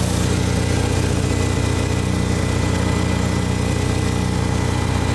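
Vehicle engine idling steadily, heard from underneath at the muffler, its exhaust pulses puffing out of a leak: a crack along the muffler.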